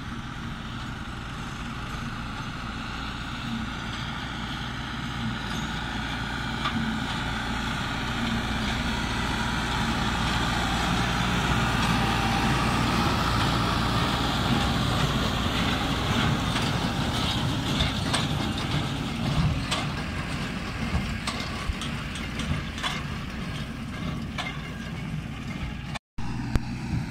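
New Holland TD95 tractor's diesel engine running steadily under load as it pulls a CLAAS Quadrant 2200 square baler past. It grows louder as it comes close, about halfway through, then fades as it moves away, with sharp clicks and rattles from the baler in the later part.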